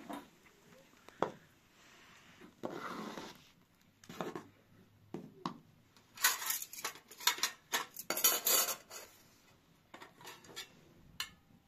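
Metal spoons and steel plates clinking as they are picked up and set down, with a few knocks and short scrapes first and then a dense run of clinking in the middle.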